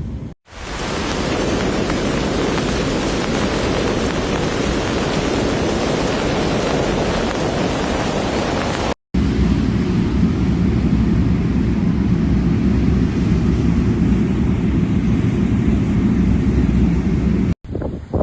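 Blizzard wind blowing hard across the microphone as steady rushing noise. About nine seconds in it cuts abruptly to a deeper, heavier rumble of wind noise.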